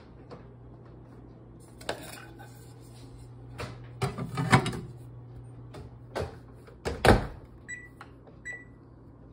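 A few knocks and clunks of handling at the microwave oven, the loudest about seven seconds in, then two short beeps from its keypad near the end as the cooking time is entered.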